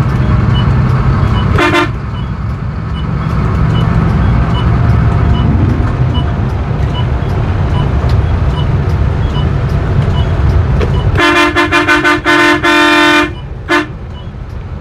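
Coach horn sounding over the steady rumble of the engine and road inside the cab. There is one short toot early, then near the end a quick string of short honks, a held blast of under a second and one last toot.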